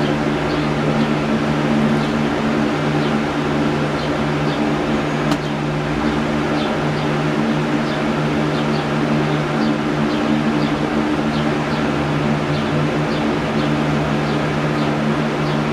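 A steady mechanical hum with constant low tones and a hiss, at an even level. Faint short high chirps recur throughout, and a single sharp click comes about five seconds in.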